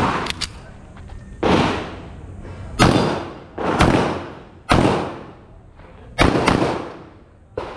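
Handgun firing a string of about six shots at uneven intervals of roughly a second, each crack trailing a short echo.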